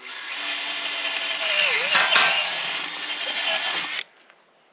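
Cordless drill boring a large hole through a wooden gate post. The motor runs for about four seconds, dips in pitch as it bogs under load about two seconds in, recovers, then stops suddenly.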